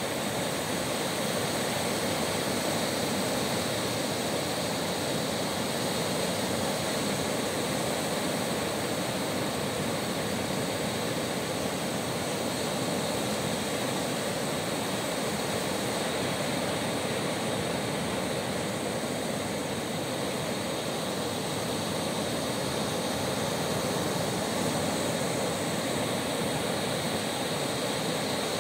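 Sea surf: rows of small waves breaking close in and washing up a flat sandy beach, a steady rushing noise with no pauses.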